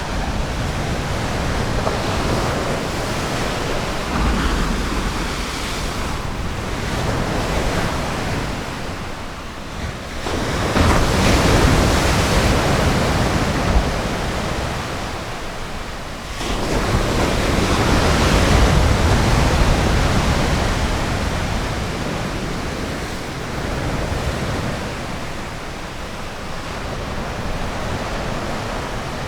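Ocean waves breaking and washing up a sandy beach, with surges about ten seconds in and again about sixteen seconds in, and some wind on the microphone.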